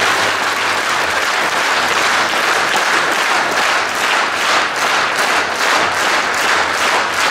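Concert hall audience applauding. About halfway through, the clapping falls into a rhythmic beat of roughly three claps a second.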